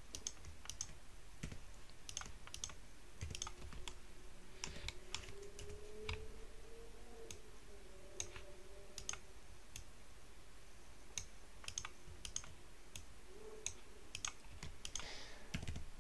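Irregular clicks of a computer mouse and keyboard keys being pressed while working in 3D modelling software, with a faint wavering tone in the background midway.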